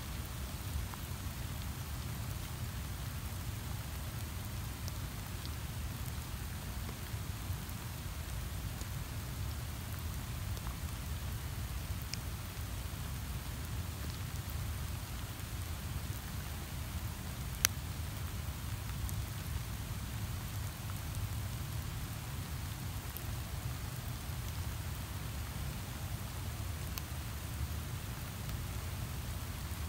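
Steady rain falling, an even hiss with a low rumble beneath it. There is one sharp click a little past halfway through.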